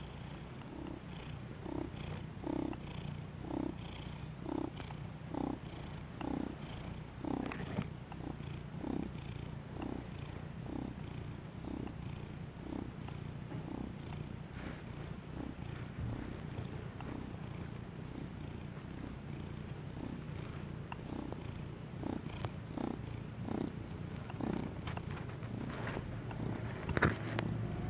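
Domestic cat purring close up: a steady low purr that swells with each breath, about once a second.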